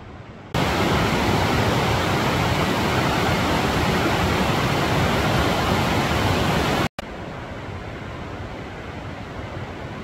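Steady rush of water, starting abruptly and loud about half a second in and cutting off suddenly near seven seconds, followed by a quieter steady rushing noise.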